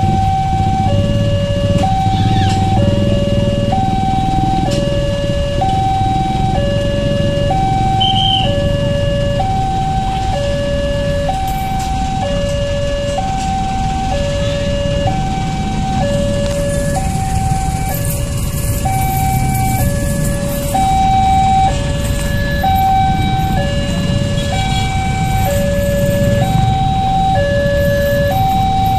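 Electronic two-tone warning alarm of a railway level crossing, alternating a higher and a lower tone of about a second each, repeating steadily while the barriers are down. Low rumble of waiting traffic engines underneath.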